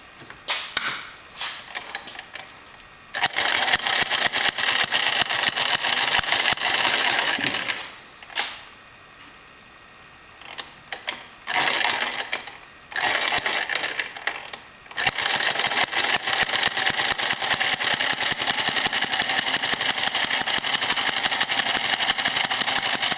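Small single-cylinder four-stroke model engine with points-and-coil spark ignition being started. It fires in fits: short spells of running with pauses between them, then from about fifteen seconds in it runs steadily with rapid, even firing.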